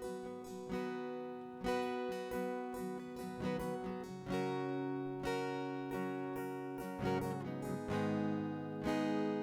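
Acoustic guitar strumming sustained chords in an instrumental interlude between worship songs, with no singing.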